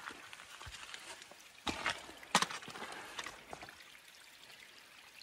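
A few footsteps and scuffs on a wet, rain-soaked mountain trail, the loudest about two seconds in, over a faint steady trickle of running water.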